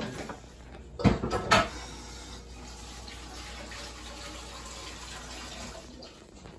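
A couple of sharp clattering knocks about a second in, like a metal pan set down, then a steady hiss of water running from a tap that fades near the end.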